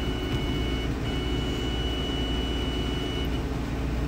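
Benchtop progesterone analyzer running a quick test: a steady hum with a thin, high-pitched whine that breaks off briefly about a second in and stops near the end.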